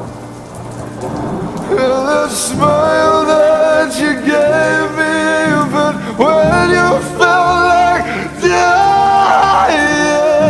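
Slowed-down pop song: a wordless sung vocal line with long, gliding held notes comes in about two seconds in over a low bass, with a rain sound mixed underneath.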